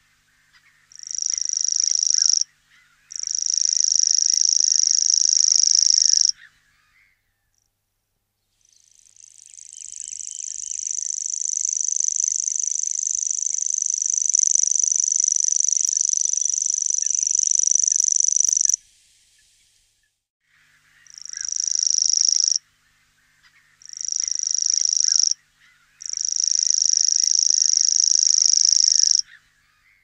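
Common grasshopper warbler (Locustella naevia) reeling: a high-pitched, unbroken trill given in separate reels. There are two short reels, then one long reel of about ten seconds that swells in gradually, then three more short reels.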